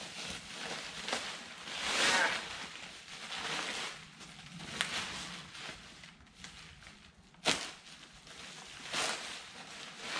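Bubble wrap and plastic packaging crinkling and rustling in uneven bursts as a boxed metal trailing arm is unwrapped, with one sharp snap about seven and a half seconds in.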